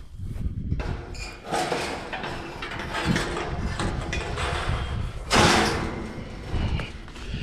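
Steel sliding gate of a hog trap being hauled up by hand, rattling and scraping in its frame, with a louder clattering burst about five seconds in.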